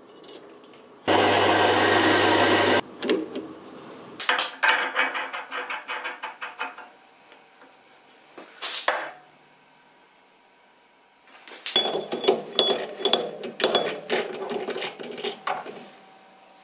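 A machine runs loudly and steadily for under two seconds and stops. Then steel parts clink and tap as they are handled and fitted together. Near the end comes a longer run of sharp metallic clicking and clinking with short ringing notes, at a metal lathe's chuck.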